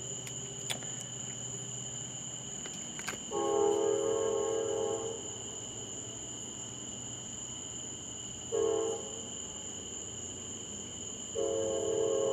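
Distant train horn sounding three blasts, long, short, then long, each a chord of several notes, over the steady chirping of crickets.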